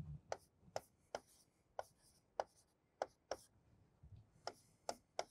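A stylus tip tapping and clicking on the glass of an interactive touchscreen whiteboard as words are handwritten: about ten sharp ticks, uneven, roughly two a second, with a short pause partway through.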